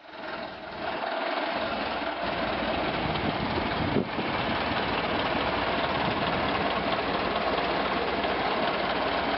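Vintage car engine running steadily, with a fast, even pulse of firing strokes and a single knock about four seconds in.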